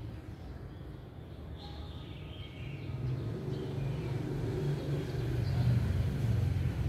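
Low engine rumble of a motor vehicle, growing louder from about three seconds in, with faint chicken calls early on.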